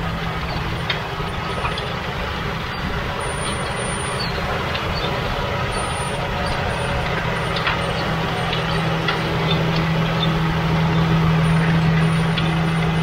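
Six-cylinder FPT diesel engine of a McCormick X7.618 tractor running steadily, a low drone that grows louder near the end.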